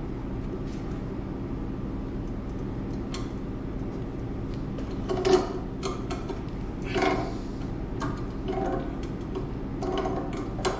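Two wrenches clicking and scraping on threaded steel pipe fittings on an air compressor's discharge line as a stuck fitting is worked loose, with a few louder knocks and scrapes in the middle. A steady low hum runs underneath.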